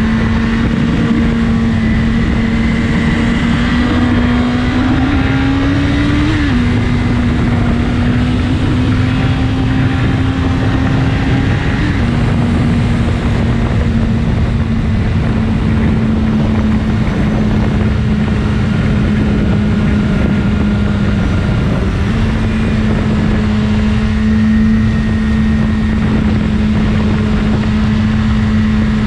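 BMW S1000RR's inline-four engine running steadily under way, its pitch climbing slowly and then dropping as it shifts up about a quarter and two-fifths of the way in, and rising in one step near the end, over a steady rush of wind noise.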